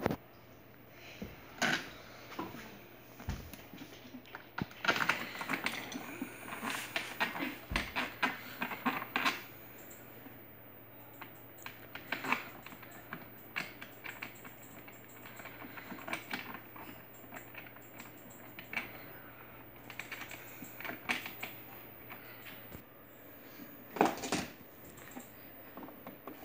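Hard plastic parts of a ride-on toy car clicking and knocking as they are handled and fitted together: an irregular run of small clicks and taps, with a louder knock near the end.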